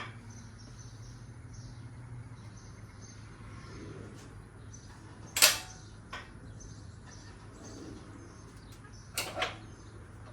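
Metal arms of a strut spring compressor clanking against the coil spring as they are set in place: one sharp clank about five seconds in, a lighter knock just after, and two more close together near the end. A steady low hum runs underneath.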